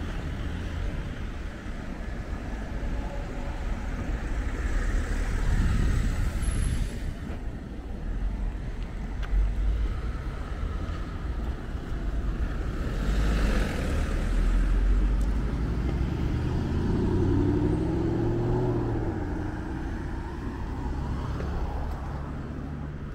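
Road traffic: cars and a small van driving past on a town street, engines running and tyres hissing on the road. One car passes close about halfway through, and a few seconds later an engine note rises and falls.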